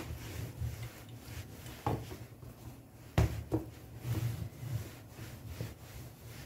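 A white rolling pin rolling out soft yeast dough on a floured stainless-steel worktop: a low rumbling rub, broken by a few sharp knocks, the loudest about three seconds in.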